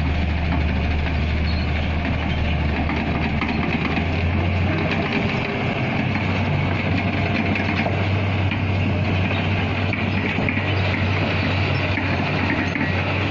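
Kobelco Acera hydraulic excavator's diesel engine running steadily up close, a strong low hum whose pitch steps up slightly about four seconds in.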